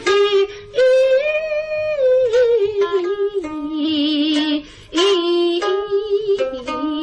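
A woman singing a Suzhou tanci (pingtan) aria, a slow drawn-out melody with long wavering held notes and a short break about two-thirds through, accompanied by pipa and sanxian.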